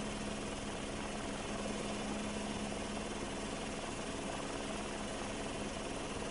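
Helicopter running steadily: a constant rotor drone with a fast low flutter, a steady hum and a rushing noise.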